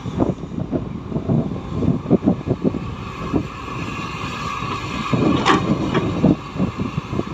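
Heavy earthmoving machinery at work: a diesel engine running under a string of irregular low knocks and clunks, with one sharper, brighter clank about five and a half seconds in.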